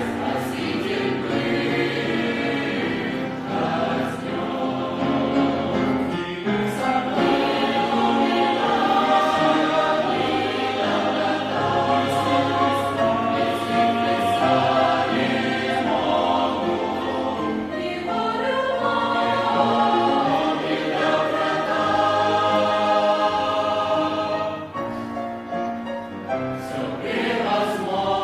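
Church youth choir singing a Christian song in Russian, voices holding long notes together.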